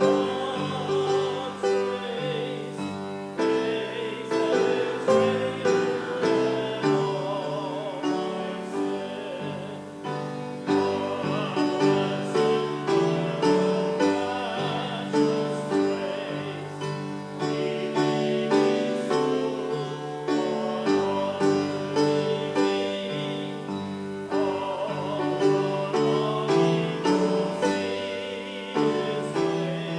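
Church music: a keyboard accompaniment with voices singing a slow hymn-like melody, with notes changing in a steady rhythm.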